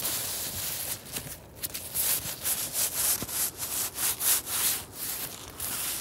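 A hand rubbing and scraping across the frost-covered fabric of a tent fly, making a scratchy hiss that breaks into a run of rubbing strokes, about three a second, from about two seconds in.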